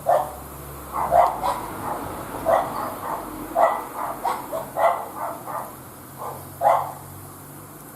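A dog barking repeatedly: about fifteen short, sharp barks in uneven groups, with a pause of about a second near the end.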